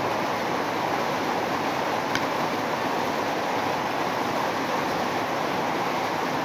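Steady rushing noise that holds an even level throughout, with one faint click about two seconds in.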